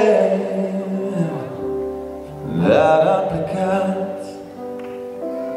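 Live band music: sustained keyboard chords with a man singing a phrase over them about two and a half seconds in.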